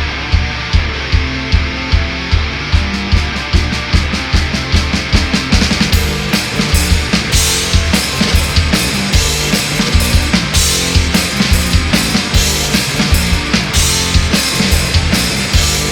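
Instrumental punk rock with distorted guitars, bass and a driving drum kit; the drumming picks up and the cymbals crash harder about six seconds in.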